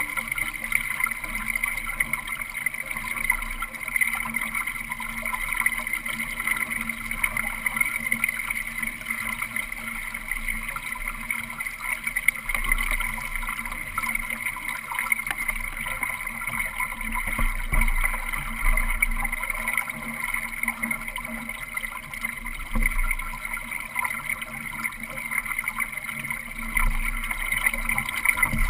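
Water rushing and gurgling along the hull of a Solo sailing dinghy under sail, heard from a camera mounted on the boat, with irregular low gusts of wind buffeting the microphone.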